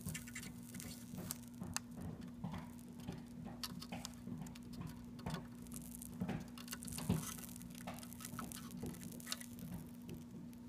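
Faint, irregular crackling and ticking of flux boiling under a soldering iron on a twisted copper-wire wick, as the wick draws solder off circuit-board joints. A steady low hum runs underneath.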